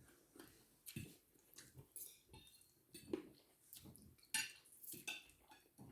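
Spoons and forks clinking and scraping on plates and bowls during a meal: scattered quiet clicks, a couple of them sharper about three and four and a half seconds in.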